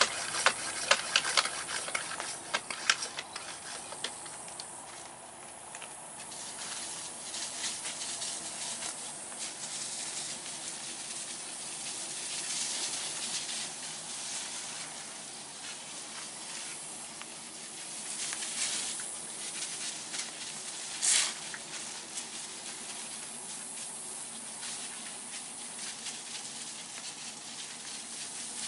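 Handheld pump-up garden sprayer misting liquid onto leafy greens: an uneven hiss of spray that comes and goes in spurts, with one short louder burst about three quarters of the way through. A few sharp clicks sound in the first few seconds.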